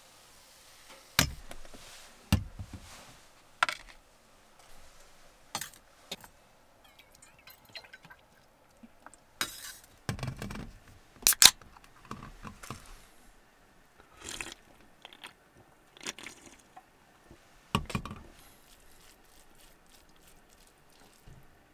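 Tableware handled on a metal tabletop: scattered clinks and knocks as a frying pan, plate and steel cup are set down, with a beer can cracked open with a sharp click about halfway through.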